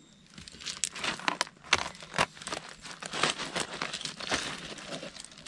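Cooked crab being broken apart by hand: irregular crackles and snaps of shell as it is cracked and picked for meat.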